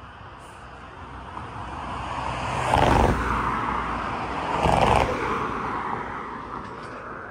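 A road vehicle passing by, its noise swelling to a peak about three seconds in and again near five seconds, then fading away.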